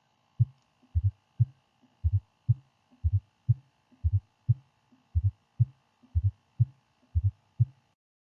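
Recorded heart sounds at a slow, steady rate of about one beat a second. Each beat gives a doubled thump followed by a single one: a fourth heart sound (S4 gallop) falling just before the first sound, which is always pathological and points to a stiff, poorly compliant ventricle. A faint steady hum runs underneath.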